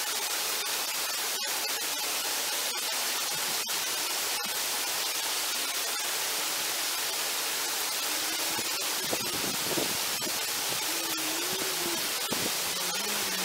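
Steady hiss of noise with a few faint clicks in the first few seconds. From about two-thirds of the way in, a faint hum rises and falls in pitch, like a distant engine.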